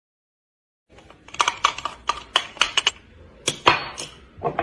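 Silent at first, then about a second in a quick, uneven run of around ten sharp clicks and taps, followed by two louder knocks about halfway through and another near the end.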